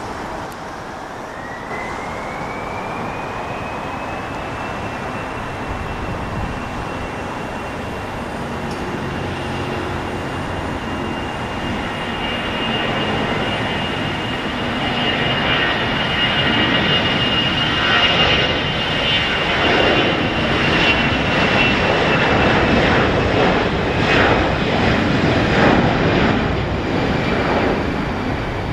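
Airbus A321-211's twin jet engines spooling up for takeoff: a whine rises in pitch over the first few seconds and then holds steady. The engine noise grows steadily louder as the airliner accelerates down the runway, and is loudest about two-thirds of the way through.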